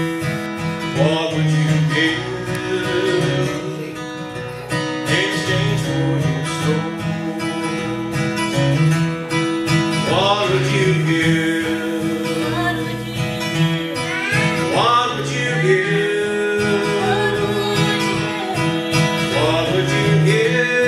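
Acoustic guitar strummed as steady accompaniment while a man and a woman sing a country-style song together.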